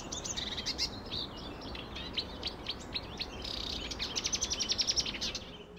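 Birds chirping and singing over a steady background hiss, with a fast trill of about ten even notes a second near the end; the sound stops abruptly at the very end.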